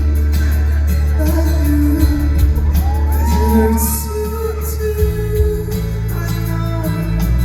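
Live band music at a sound check: heavy bass and instruments with a sung melody, the bass pattern changing about five seconds in.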